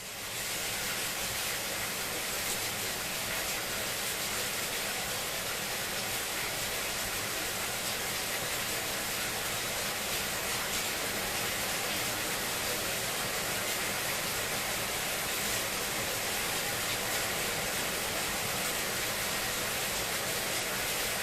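Steady rain, a dense, even hiss that swells up at the very start and then holds unchanged.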